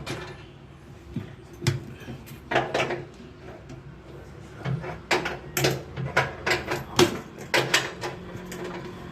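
Irregular metallic clicks, clinks and knocks of hand tools loosening fittings on an air-conditioner unit, over a steady low hum.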